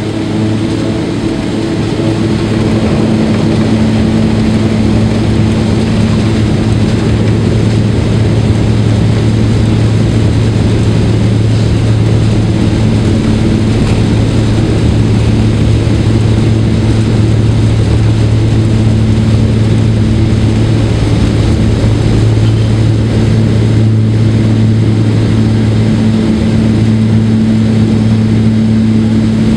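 Saab 2000's Rolls-Royce AE 2100 turboprop engines and propellers at takeoff power, heard inside the cabin: a loud, steady low drone over a rushing noise. It swells over the first couple of seconds as power comes up, then holds steady through the takeoff roll and climb-out.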